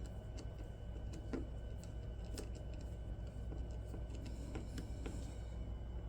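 Scattered light clicks and ticks of small metal parts of a Civivi Vision FG folding knife being handled and fitted back together during reassembly, over a steady low hum.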